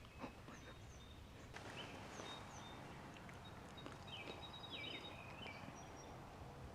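Faint songbird chirps and short slurred calls over quiet open-air background, with a brief run of calls about four seconds in.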